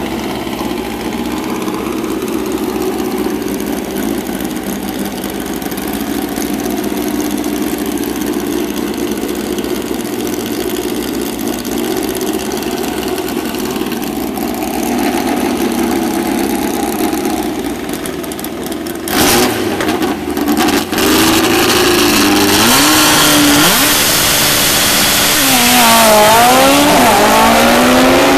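Drag-racing car engines idling steadily at the starting line, then a couple of short, very loud blasts of throttle about two-thirds in. The cars then launch down the drag strip, engine pitch sweeping up again and again as they accelerate away.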